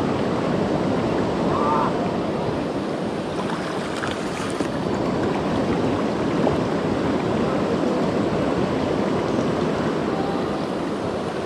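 Steady rush of a fast-flowing, muddy river, with the water splashing and swirling around legs wading through it.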